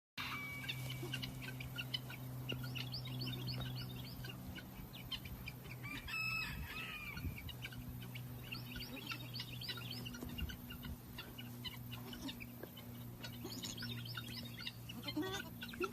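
Chickens: many short high peeping calls throughout, with one louder drawn-out call about six seconds in. A steady low hum runs underneath.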